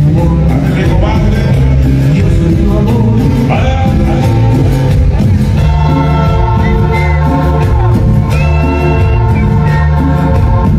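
Loud dance music with singing over a heavy bass beat.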